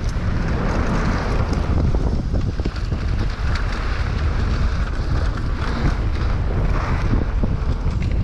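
Wind buffeting the microphone as a Specialized Enduro mountain bike rolls down a dry dirt trail, a steady low rumble with the crunch of tyres on loose dirt and frequent small rattles and clicks from the bike over bumps.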